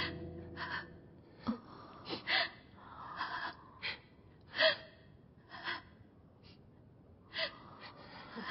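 A gravely ill woman's laboured breathing: a string of short gasping breaths, roughly one a second. A gong's ringing dies away in the first second.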